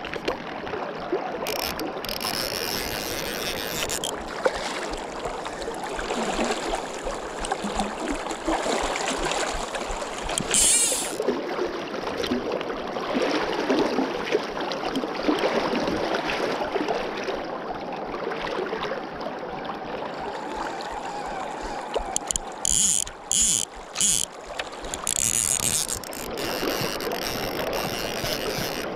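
River current rushing and lapping right at the microphone, a steady watery hiss. Brief louder bursts of hiss break in a couple of seconds in, again about a third of the way through, and as a quick series of short bursts near the end.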